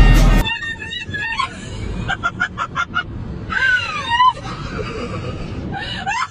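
Background music cuts off about half a second in. Then people laugh and exclaim, with a quick run of laughs and a high falling cry, over steady low road noise inside a car.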